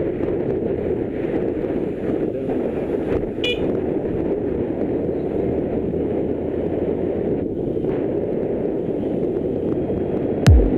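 Steady wind buffeting and engine and road rumble from a moving motorcycle, as picked up by an action camera. A short high beep sounds about three and a half seconds in, and near the end deep falling bass thumps begin as electronic background music starts.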